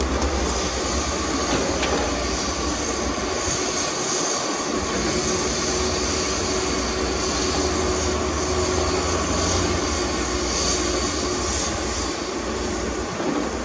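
Heavy diesel earth-moving machinery running steadily under load, with a deep engine rumble and a constant hiss.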